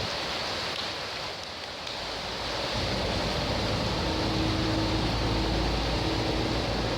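Steady hiss of rain and running water. A little under three seconds in, the low rumble of a bus's diesel engine comes in and holds, with a steady whine over it for a couple of seconds.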